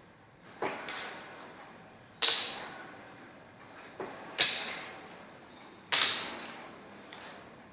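Makruk game in play: a series of sharp knocks on the playing table, one about every one and a half to two seconds, a couple of them a light tap followed by a harder knock, each ringing out for about a second.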